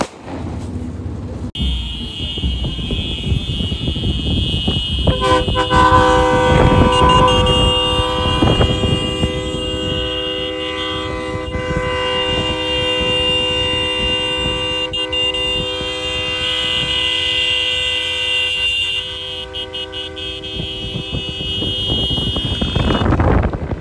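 Vehicle horns held down in a long, steady blare: a high horn comes in about a second and a half in, and a deeper horn with several notes joins a few seconds later, over the rumble of engines.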